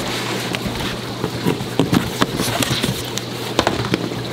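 Cardboard shipping box being opened by hand, its flaps pulled back: irregular knocks, scrapes and crackles of handled cardboard.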